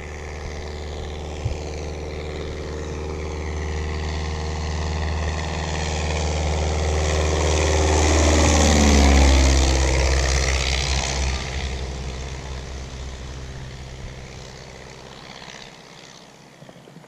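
A Piper Cub light plane flying low past under engine power. It grows louder for several seconds, is loudest about halfway through, drops in pitch as it goes by, then fades away.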